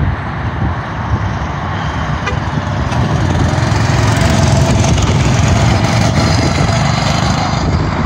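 Go-kart engines running as the karts drive by, louder for a few seconds in the middle as one passes close.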